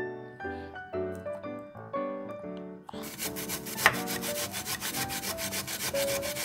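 Piano background music, then, about three seconds in, a hard Korean pear rubbed back and forth on a small stainless steel grater in quick, regular scraping strokes, several a second, with the piano still going underneath.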